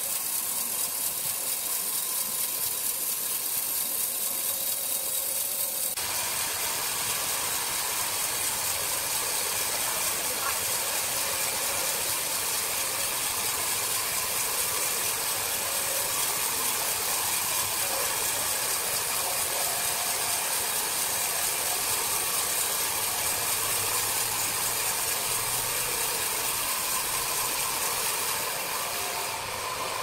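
Horizontal band sawmill running, its blade cutting lengthwise through a large log with a steady, noisy hiss. The sound changes abruptly about six seconds in.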